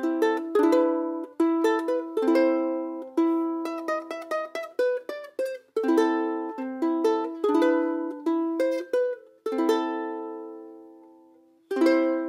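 Ohana VKC-70 Vita spruce-top concert ukulele strummed in chords that ring out between strokes. Late on, one chord is left to ring and fade for about two seconds before strumming starts again near the end.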